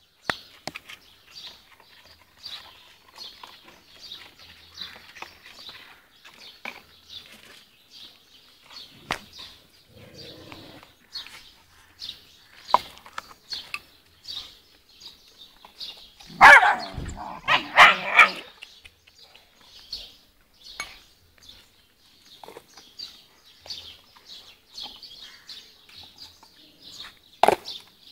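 Stray puppies barking and yelping in a short loud outburst of several calls, about sixteen to eighteen seconds in, over a run of faint high chirps.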